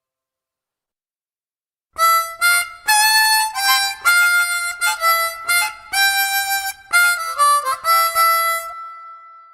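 Harmonica playing a short riff of quick notes and chords, starting about two seconds in and ending on a held note that fades away.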